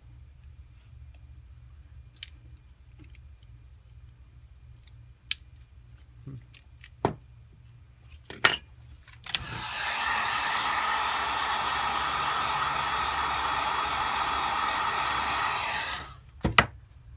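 Hot-air blower running steadily for about six seconds, a loud airflow hiss with a steady motor whine, switched on about nine seconds in and cut off near the end. It is heating the phone to soften the screen adhesive. Before it come scattered sharp clicks and taps of tools on the phone.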